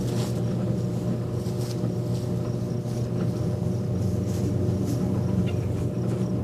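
A steady low mechanical hum, like a motor or engine running, with a few faint clicks over it.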